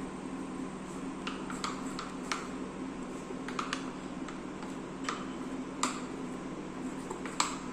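A spoon clicking against a bowl in light, irregular taps while stirring semolina cake batter, over a steady low hum.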